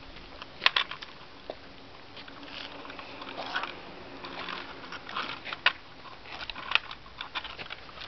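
Irregular crunching and scraping of stones and gravel, with a few sharp clicks.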